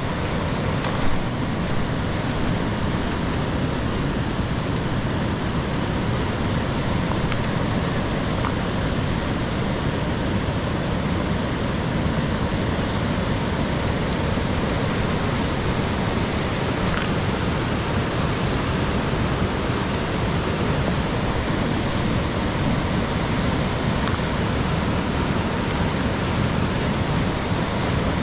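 Fast river rapids rushing: a steady, loud wash of whitewater over rocks, with a single brief knock about a second in.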